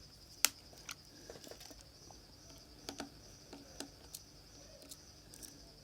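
Scattered small clicks and taps of tiny phone screws and a screwdriver being handled, about a dozen light ticks at uneven spacing. A steady, faintly pulsing high insect chirring runs underneath.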